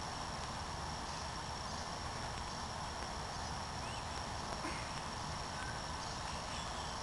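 Steady outdoor background noise: an even hiss with a constant thin, high tone running through it.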